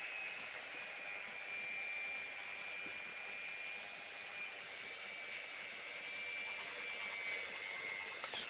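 Electric drill running steadily: a high whine over a hiss.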